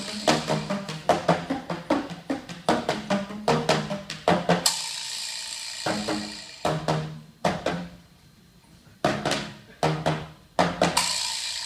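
Live drum and percussion music: rhythmic bursts of pitched drum hits, broken by a long ringing decay about five seconds in and a brief lull, before the hits start again.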